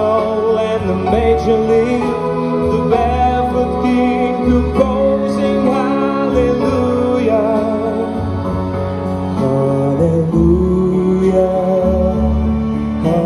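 A male singer with vibrato, backed by a symphony orchestra holding sustained chords.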